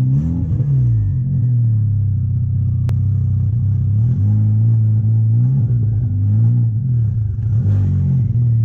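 MK6 Golf R's built turbocharged four-cylinder engine idling steadily at operating temperature, with several short revs: near the start, around four and six seconds in, and near the end. It sounds good with its new cam timing chain, tensioner and cam adjuster fitted. A single sharp click comes about three seconds in.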